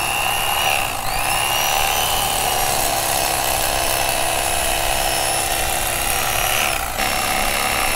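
Electric fillet knife running while filleting speckled trout: a steady motor whine with its buzzing blades, the pitch dipping and picking up again about a second in and dropping again about seven seconds in as the blade works through the fish.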